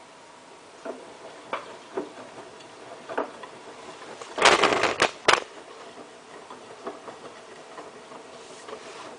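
Hotpoint Ultima WT960 washing machine mid-wash, its drum turning a load of towels, with a few soft knocks and a louder noisy rush of sound about four and a half seconds in.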